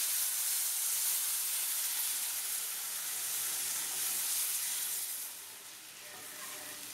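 Water hitting a hot kadai of ghee-roasted semolina, hissing and steaming loudly, the hiss easing off about five seconds in as the mixture settles into bubbling.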